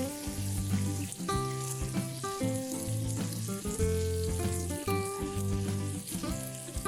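Food sizzling in hot oil in a frying pan, a steady crackling hiss, under background music with a steady bass line and melody.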